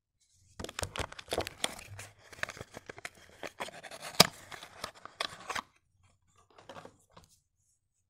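A cardboard soap box, Aroma Vital cream soap, being torn and pried open by hand: a dense run of crackling, rustling and clicking cardboard, with one sharp loud snap about four seconds in. A brief faint rustle follows near the end as the bar is handled.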